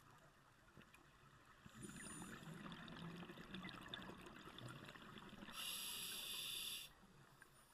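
Scuba diver's regulator breathing, heard underwater: a bubbling exhalation starting about two seconds in and lasting a few seconds, then a steady hiss of inhalation through the regulator for about a second near the end.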